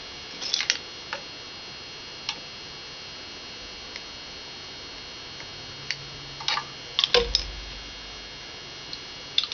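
Scattered light clicks and taps of a screwdriver and hands working on a small circuit board, with a cluster of clicks and a brief low bump about seven seconds in, over a steady faint background hum.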